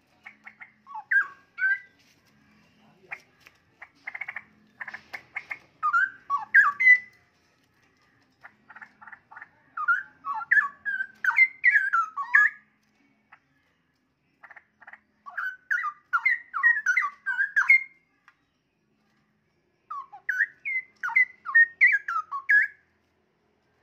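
Young straw-headed bulbul song: about five bouts, each opening with a run of rapid chattering clicks and going into fast whistled notes that glide up and down, with pauses of a second or two between bouts.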